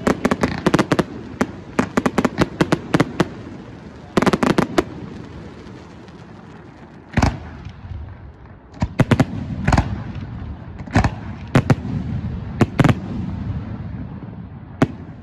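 Aerial fireworks shells bursting: a rapid volley of bangs in the first few seconds and another cluster about four seconds in. After that, single loud bangs follow every second or two, with a low rumble between them.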